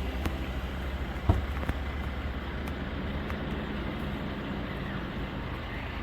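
A steady low engine hum with a single sharp knock about a second in.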